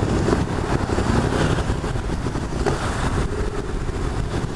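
Storm wind and heavy rain buffeting a helmet-mounted camera's microphone: a loud, unbroken rush heaviest in the low rumble.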